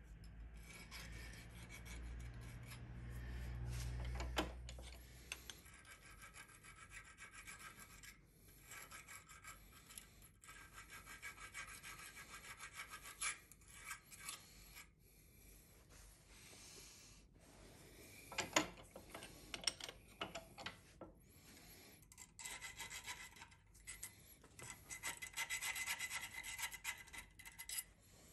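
Diamond needle file stroking back and forth over the edges of a machined metal burnishing-tool body held in a vise, deburring it: repeated light rasping strokes. A low rumble in the first few seconds and a sharp tap about two-thirds of the way in.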